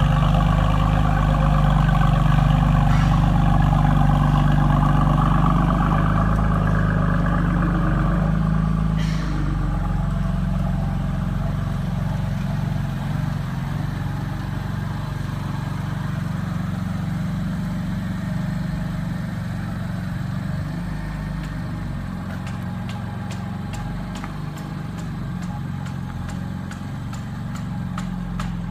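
BMW M3's S55 twin-turbo inline-six, ESS-tuned, idling steadily through an Eisenmann exhaust. It is somewhat louder for about the first nine seconds, then settles a little quieter.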